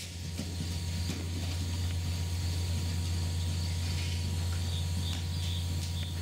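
A steady low hum that holds unchanged.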